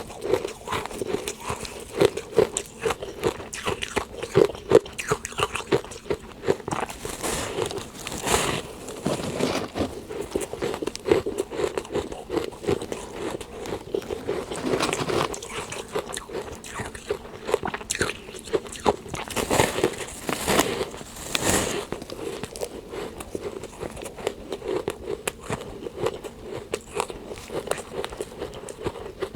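Close-up crunching and chewing of powdery freezer frost: a steady run of fine crackles, broken every few seconds by a louder bite.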